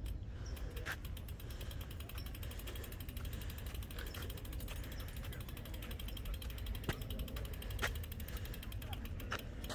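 Rapid, even ratchet-like clicking over a steady low rumble, with a few louder sharp clicks.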